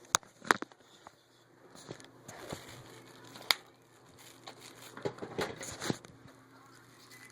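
Sharp plastic clicks and knocks from the Hoover WindTunnel Air's extension hose being unclipped from the handle and handled: a few single clicks, then a short cluster of smaller knocks near the end, with the vacuum's motor off.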